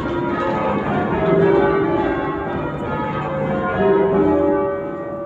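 Ring of ten full-circle church bells, a heavy 31 cwt ring in C sharp cast by Thomas Janaway and John Warner & Sons, rung in rounds. It is heard from the ringing chamber below, with each bell's strike overlapping the hum of the last. The sound eases off a little near the end.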